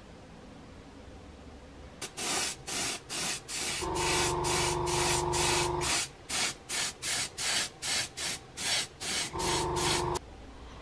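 Airbrush spraying paint onto a small plastic model part in short hisses, about three a second, with a longer steady spray about four seconds in and another near the end. A steady motor hum sounds only during the two longer sprays.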